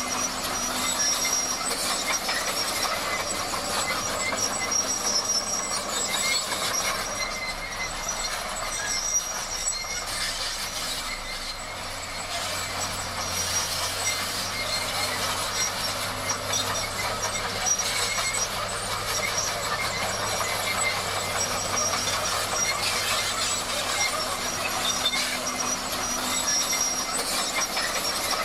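Crawler bulldozer at work: the engine runs steadily under a continuous metallic squeal from the steel tracks.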